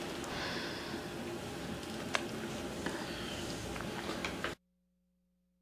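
Steady room noise with a few faint clicks, which cuts off abruptly about four and a half seconds in, leaving near silence with a faint steady hum.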